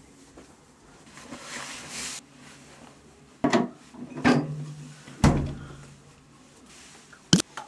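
Household handling noises: a stretch of rustling, then several sharp knocks and thumps, the loudest a little past five seconds in, and a short sharp click near the end.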